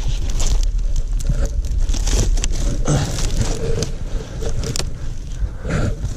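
Irregular crunching and scraping of hand tools working soil and debris, over a steady low rumble.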